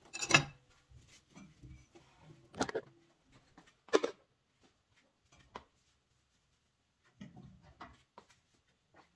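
A few sharp knocks and clatters of kitchen items being handled by the sink: three louder ones in the first four seconds, then only faint ticks and rustles.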